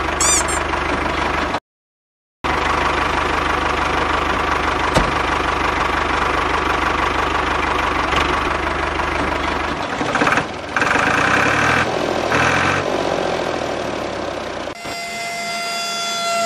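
Tractor engine idling steadily with a knocking diesel-like beat. It cuts out to silence for under a second about two seconds in. Steady held tones of a tune come in near the end.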